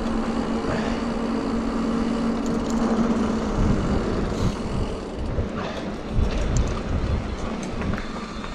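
Wind rumble and trail noise from a mountain bike on the move, as heard by a camera mounted on the rider or bike. A steady hum stops about three and a half seconds in, and uneven low thumps and faint rattles follow.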